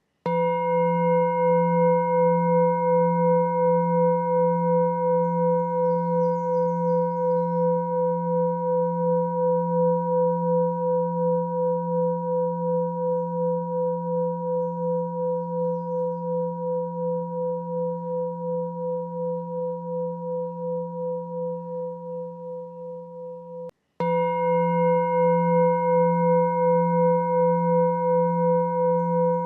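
A sustained ringing meditation tone with a low hum and higher overtones that pulse about two to three times a second. It begins with a sharp attack and slowly fades, then cuts off about 24 seconds in and starts again with another sharp attack.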